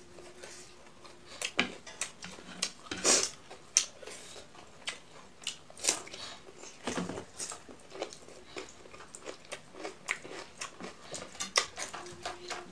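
Close-up eating sounds from a person's mouth: irregular crunchy bites and chewing, made up of many short, sharp crunches and wet mouth clicks. A loud crunch about six seconds in comes as a piece of raw cucumber is bitten.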